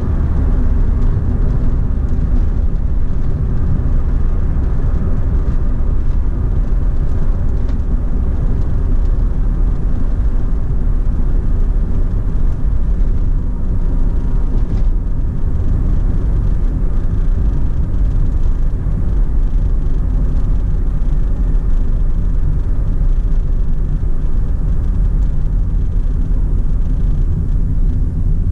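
Perodua Myvi 1.5 H hatchback heard from inside the cabin while driving: a steady low rumble of engine, road and tyre noise, unchanging throughout.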